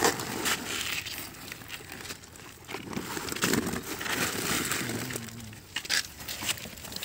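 Woven plastic and burlap sacks rustling and crinkling as they are handled and pushed into one another, with scattered sharper crackles.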